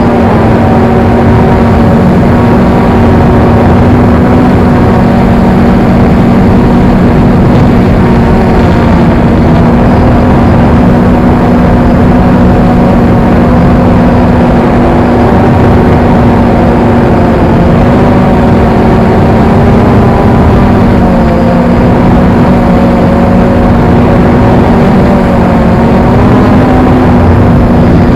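XK X380 quadcopter's motors and propellers running steadily in flight, a loud whine whose pitch wavers slightly as the throttle shifts.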